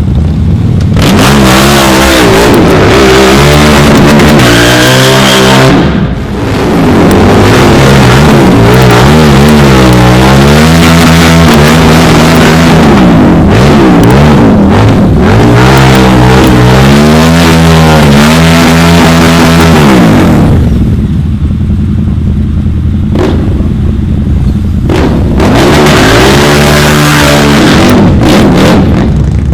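Motorcycle engines revving hard, pitch climbing and falling again and again, very loud throughout. About two-thirds through they settle into a steadier, lower running before revving up once more.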